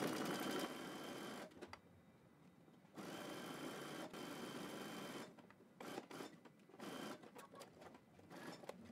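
Electric sewing machine sewing a zigzag stitch through elastic turned in twice along a leg opening, running in stop-and-start spells. It makes a short run, pauses, makes a longer run of about two seconds, then gives several brief bursts near the end.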